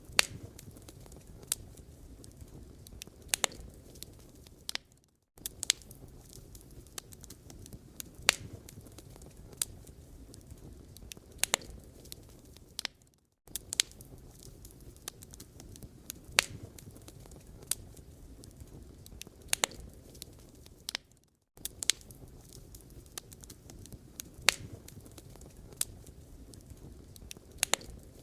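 Wood fire crackling in a fireplace: irregular sharp pops and snaps over a low, steady rush of flame. The sound cuts out for a moment three times.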